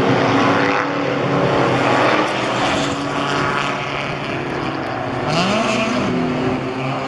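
Race car engines running on the circuit: a steady engine drone, with one engine note rising and then falling about five seconds in.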